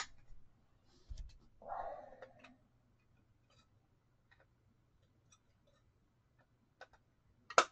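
Scattered clicks and knocks of card supplies and plastic card holders being handled while someone looks for a one-touch holder: a sharp click at the start, a low knock about a second in, light ticks, and another sharp click near the end. A brief voice-like sound comes about two seconds in.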